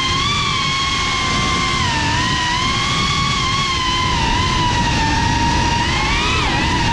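Geprc Cinelog 35 FPV drone's brushless motors and propellers whining, heard from on board over rushing air noise. The pitch drifts up and down with the throttle and swings down and back up sharply about six seconds in, as the drone banks hard.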